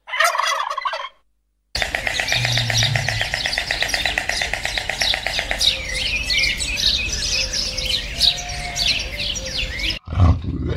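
A dense chorus of small birds chirping and twittering, with a fast, even trill through its first few seconds. It is preceded by a short burst of calls and a brief gap at the start.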